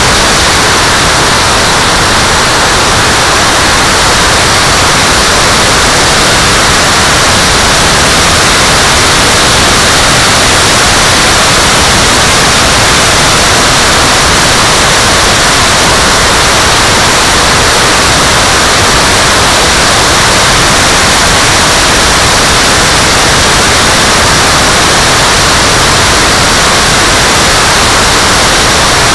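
Loud, steady hissing rush from a Scorpion electric ducted-fan RC jet in flight, heard from a camera on its nose: fan noise and wind over the microphone, with a faint steady high whine.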